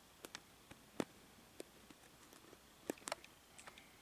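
Near-silent room tone broken by a handful of short, irregular faint clicks, the sharpest about a second in and two close together near three seconds.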